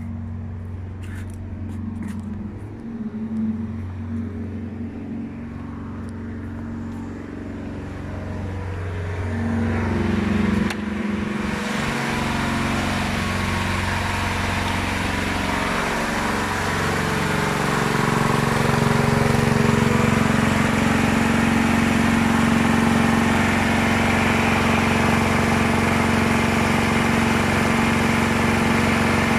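Ayerbe 208 cc petrol generator's single-cylinder four-stroke engine running steadily with no load, its washing-machine extension cable just unplugged. The engine sound grows louder and fuller about ten seconds in, then holds steady.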